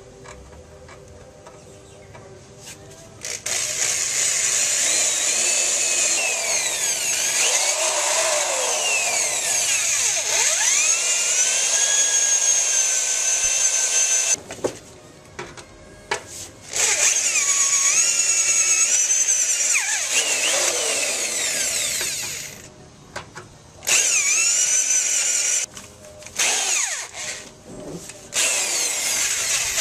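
Power drill boring out spot welds in the sheet-steel radiator support of a car. It comes in several runs of a few seconds with short pauses between, starting about three seconds in. Each run is a high-pitched whine that wavers up and down as the bit cuts through the steel.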